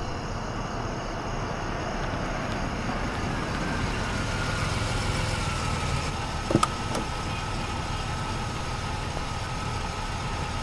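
Engine of a Toyota sedan idling steadily after pulling up, with two short clicks a little over six seconds in.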